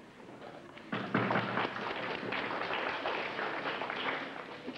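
Flexible aluminium duct hose crinkling and clattering as it is handled: a dense burst of crackles and thuds that starts suddenly about a second in and lasts about three and a half seconds.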